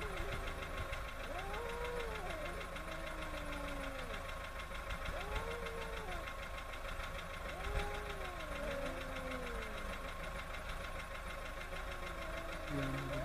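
Two cats yowling at each other in a standoff: long calls that rise and fall in pitch, often overlapping, over the steady low hum of an idling car engine.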